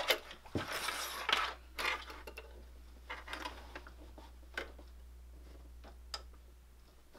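Fabric rustling and being shifted into place on a sewing machine bed, most of it in the first couple of seconds, then a few scattered light mechanical clicks. The machine is not stitching yet.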